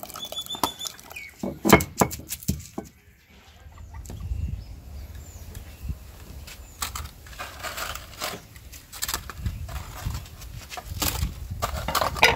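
Chickens clucking, mixed with scattered short knocks and a low rumble.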